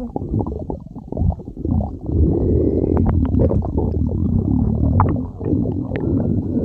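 A human stomach growling: a long rumble with quick bubbling gurgles, getting louder and fuller about two seconds in.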